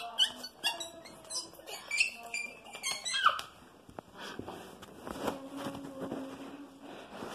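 A young girl's high-pitched giggles and squeals in short bursts for the first three seconds or so, then quieter.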